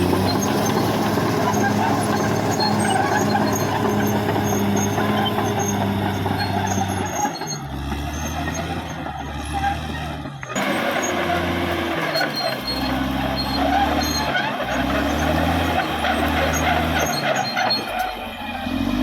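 Caterpillar D6R XL bulldozer's diesel engine running steadily, its pitch stepping up and down as it works. The sound breaks off abruptly about halfway through and comes back at once.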